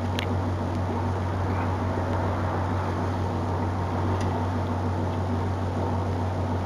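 A steady low hum with a constant hiss, and one short click just after the start.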